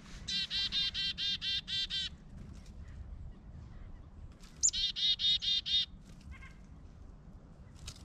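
Black-capped chickadee giving its chick-a-dee call twice. First comes a quick run of about eight repeated 'dee' notes, then about three seconds later a single high note followed by about six more 'dee' notes.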